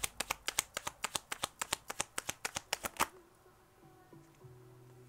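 A tarot deck being shuffled by hand: a fast run of crisp card snaps, about eight a second, ending with a sharper snap about three seconds in.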